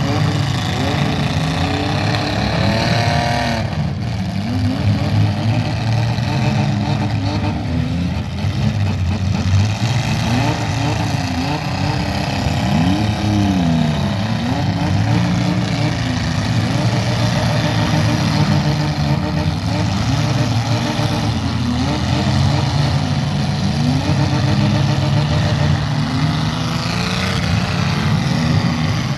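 Several demolition-derby compact cars' engines running and revving together, their pitch rising and falling over and over as the cars drive about.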